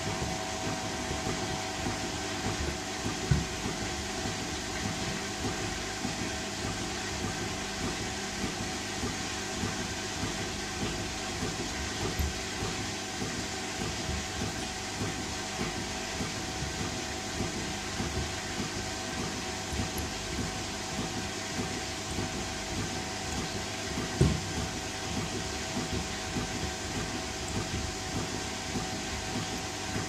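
Front-loading washing machine in its wash cycle: the drum turns with a steady motor hum and water sloshing, while the sandals in the load knock against the drum. Two louder thumps stand out, a few seconds in and about three-quarters of the way through.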